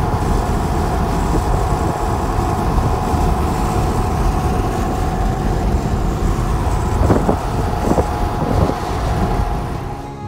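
Wind and road noise rushing in through an open car window at driving speed, a steady low rumble. It fades near the end.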